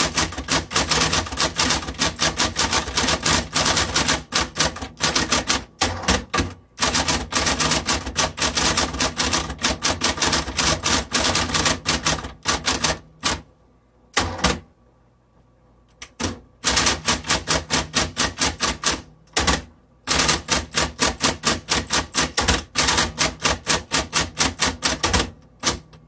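Smith Corona Coronet Super 12 electric typewriter being typed on quickly: a fast run of sharp key strikes, broken by a pause of a couple of seconds about halfway, with the machine's motor humming steadily underneath.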